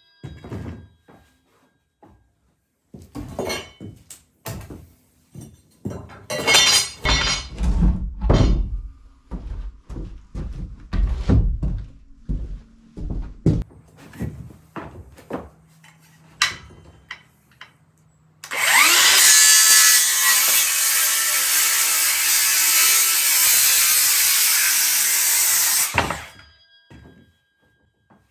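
Pine boards knocked and set down on a stack, a string of separate wooden thunks. Later a DeWalt XR cordless circular saw spins up with a rising whine and cuts through a board for about seven seconds, then stops and winds down.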